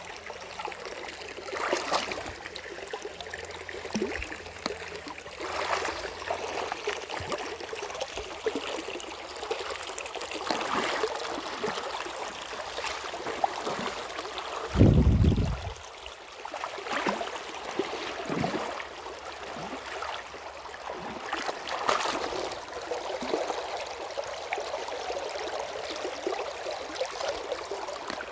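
Stream water running and trickling at a waterfall, with short splashes every second or two. A brief loud low rumble comes about halfway through.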